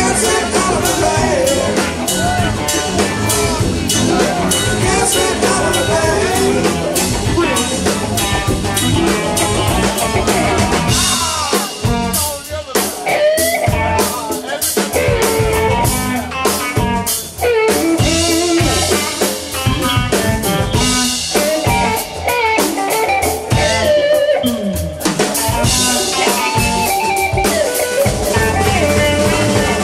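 Live rock band playing: electric guitars, bass and drum kit.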